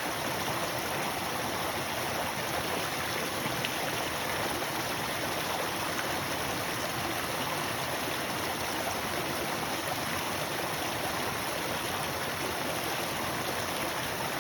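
Steady rushing of flowing water, like a stream, with no distinct events.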